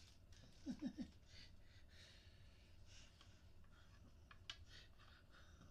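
Near silence: faint breathing and quiet handling of plastic nebuliser parts. There are three short pitched sounds about a second in, and a single sharp click about four and a half seconds in.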